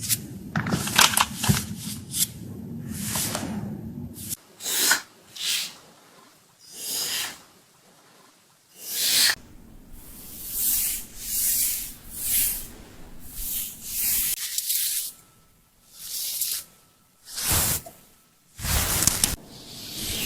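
Haircutting sound effects: scissors shearing through thick locks of long hair, each cut a short hissing rasp, roughly one every second. A low hum runs under the first four seconds and then cuts off suddenly.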